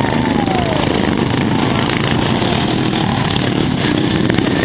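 Racing lawn mower engines running loud and steady, with one engine's pitch falling in the first second.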